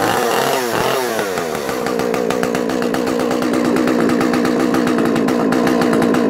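Tondu 45 two-stroke chainsaw running, revved up and down a couple of times in the first second or so, then held at a steady pitch.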